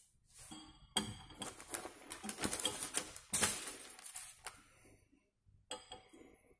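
Paper rustling in a run of quick, light clicks and taps as a white sheet is handled and set up on a bench. It starts about a second in and dies away before the end.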